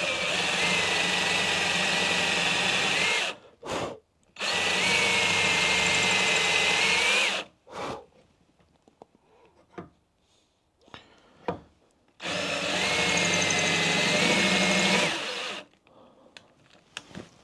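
Ryobi cordless drill spinning a homemade counterbore cutter to cut a counterbore in a bolt hole of a cast-iron flange. It runs three times for about three seconds each, with a steady whine that then stops, and there are short pauses with a few small clicks between the runs.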